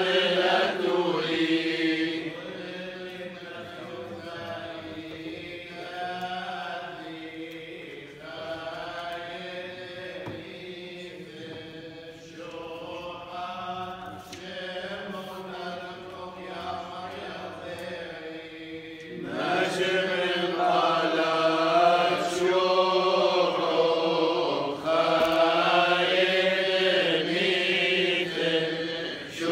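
A group of men chanting Chaldean funeral prayers together from printed texts. The chant carries on throughout, quieter from about two seconds in and swelling louder again after about nineteen seconds.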